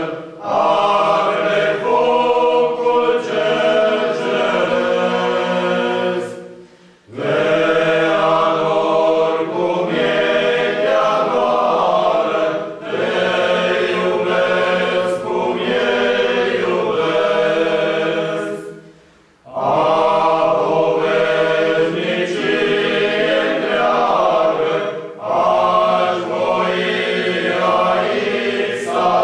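A men's choir singing a cappella in several parts: held chords in long phrases, separated by short breaks.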